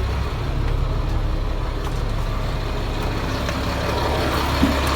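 Caterpillar 3126 diesel engine idling steadily with the power take-off just switched on to drive the boom's hydraulic pump; the low hum grows fuller just after the start. A short click comes near the end.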